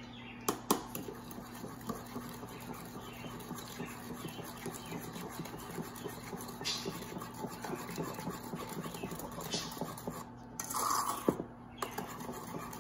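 A metal spoon stirring thick cake batter in an enamel bowl, with quick soft scrapes and ticks against the bowl's sides. A few sharper clicks come about half a second in, and a brief louder sound comes about eleven seconds in.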